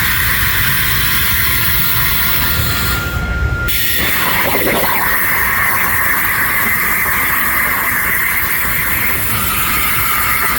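CNC plasma torch cutting steel: a loud, steady hiss from the arc and its air stream. A thin steady tone sounds for a couple of seconds before the hiss changes about four seconds in.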